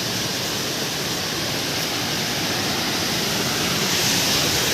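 Waterfall pouring into a pool: a steady rush of falling water, growing a little louder near the end.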